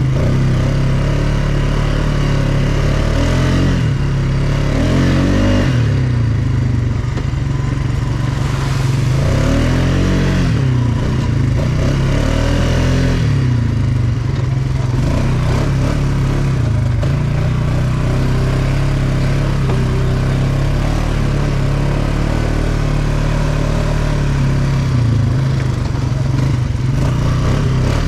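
ATV engine running under way, its pitch rising and falling a few times with the throttle in the first half, then steadier, with a rattling hiss over it.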